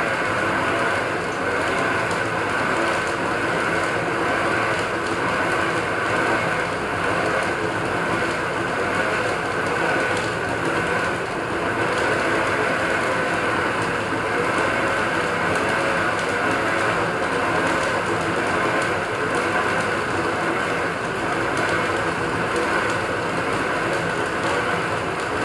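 Small metal-turning lathe running steadily, its chuck spinning, a continuous even machine whir with no pauses.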